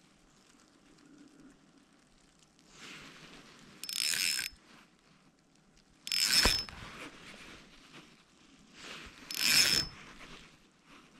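Ice-fishing reel clicking in three short bursts, each about half a second and a few seconds apart, as the line is worked while jigging.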